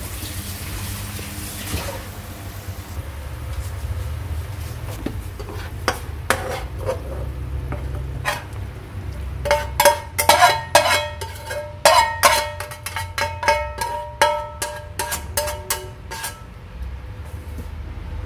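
A spatula scraping and knocking against a frying pan and a ceramic plate as cooked food is slid out onto the plate. About ten seconds in comes a run of sharp clinks that ring briefly, over a steady low hum.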